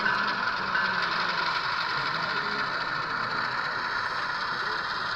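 Model train running close by: a steady mechanical whirr of motor and gears with fast, fine ticking, coming in suddenly at the start.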